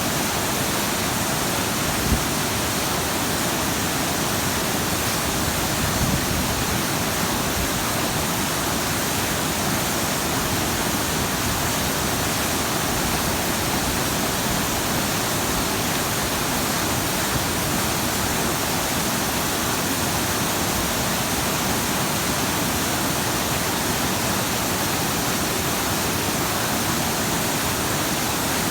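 Waterfall: falling water splashing in a steady, even rush with no change in level. A brief low thump about two seconds in.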